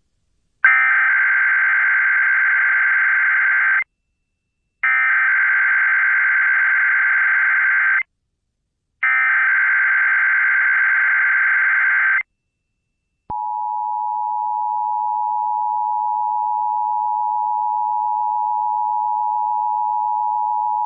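Emergency Alert System SAME header: three identical bursts of warbling digital data tones, each about three seconds long with a second's pause between, encoding a Required Monthly Test. About thirteen seconds in, the steady two-tone EAS attention signal (853 and 960 Hz together) begins and is still sounding at the end.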